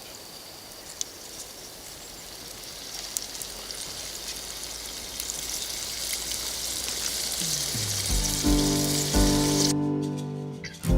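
Chopped beef sizzling as it fries in fat in a skillet, a steady hiss. About eight seconds in, music comes in and the sizzling cuts off shortly after.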